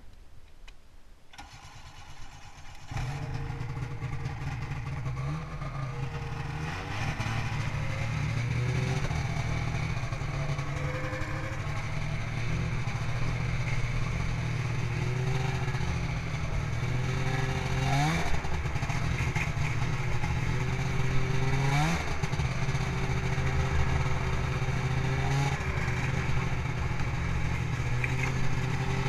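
A Ski-Doo Grand Touring snowmobile's Rotax 583 two-stroke twin engine starts up about three seconds in and runs as the sled moves off. The revs rise and fall, with two quick climbs in revs about two-thirds of the way through.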